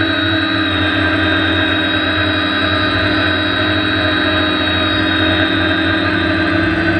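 Electric motors and propellers of a multirotor drone whining at a nearly constant pitch, heard close up from a camera mounted on the craft as it hovers low.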